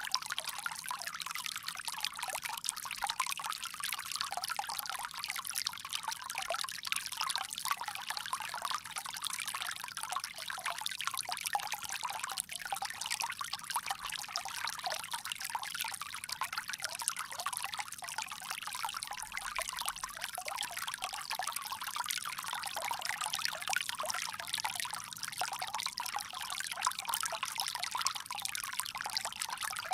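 Water pouring steadily from a bamboo spout, a continuous trickling splash with no change.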